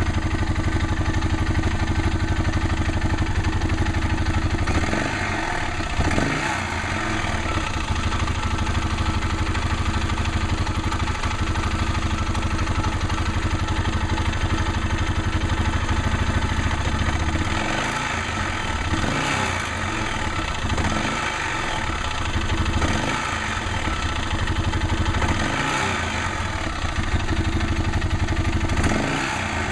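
Arctic Cat 650 H1 single-cylinder four-stroke ATV engine running with its clutch parts and drive belt removed, idling with a few throttle blips that rise and fall back. Through it runs a rattle/knock that the owner is chasing, one that still sounds with the clutch off.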